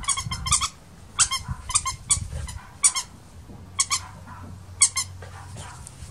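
Squeaker in a plush dog toy being squeezed again and again, giving short, high-pitched squeaks in quick pairs and clusters that stop about five seconds in.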